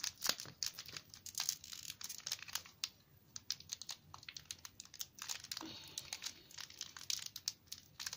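Foil Pokémon booster pack wrapper crinkling and tearing as it is worked open by hand: a quick run of small crackles and rustles, with a brief lull about three seconds in.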